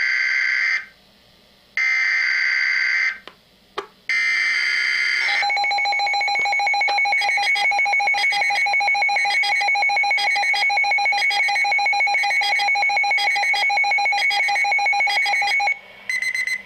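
Emergency Alert System alert tones. Three bursts of about a second each of a buzzy digital data tone come first, then about ten seconds of a steady, rapidly pulsing alert tone that cuts off suddenly, then two short data bursts near the end. The tones signal that an emergency weather bulletin, here a snow squall warning, is about to be read.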